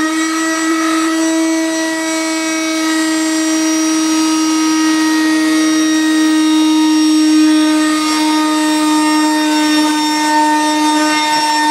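Vax Supabroom cordless floor sweeper's motor running at a steady speed, a constant whine with many overtones, powered by its aged original batteries.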